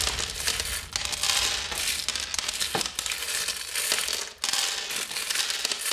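Hard-shelled M&M's candies clattering and rattling against one another and the ceramic bowl as a plastic spoon digs and scoops through them.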